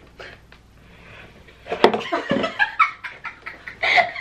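A cardboard gift-box lid lifted off, faintly, then from a little under two seconds in, loud high-pitched laughing and squealing.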